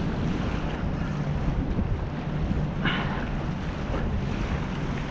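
Wind buffeting the microphone over a steady low hum, with two brief faint sounds, one about three seconds in and one near the end.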